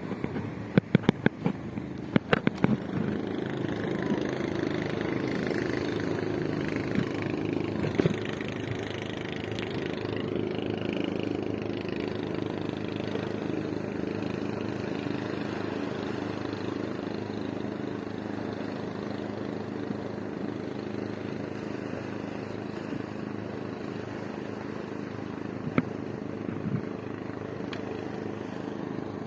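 Boat engine running steadily at an even speed, with a few sharp knocks in the first couple of seconds.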